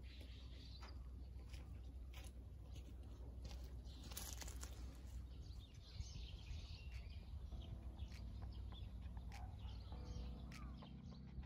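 Outdoor ambience of small birds chirping here and there over a steady low rumble, with soft music with held chords coming in about two-thirds of the way through.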